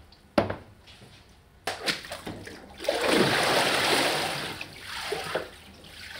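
Hand papermaking mould, a mahogany frame with a phosphor-bronze screen, dipped into a vat of paper pulp: a loud surge of sloshing, splashing water about three seconds in, lasting about a second and a half before tailing off. Two sharp knocks come before it.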